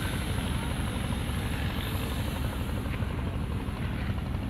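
Steady low rumble of a diesel locomotive idling with its train standing at the station.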